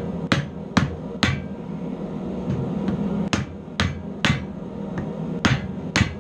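Hand hammer striking the red-hot end of a forged railroad screw held in a vise: eight sharp metal blows in three quick runs, each blow about half a second apart, with short pauses between the runs.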